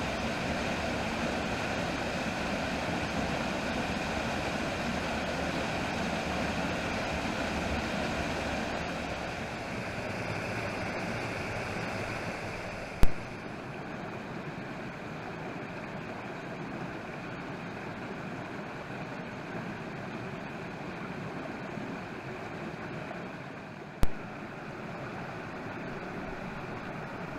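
Steady rush of a waterfall pouring into a pool, giving way about halfway through to a small creek cascading over rocks, a little quieter and duller. Two sharp clicks, one about halfway and one near the end.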